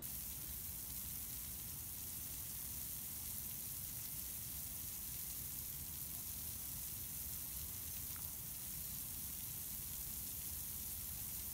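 Steady hiss of water spraying from a splash-pad sprinkler pole and ground jet, falling onto the wet surface.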